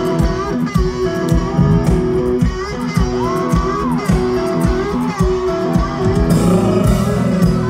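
Live country band playing loudly over a concert PA, electric guitar and bass with a steady drum beat, and a male lead vocal singing over it.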